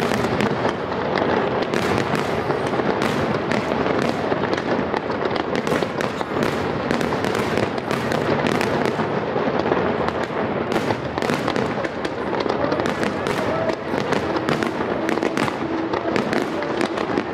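Aerial firework shells bursting in quick succession: a dense, unbroken run of bangs and crackling.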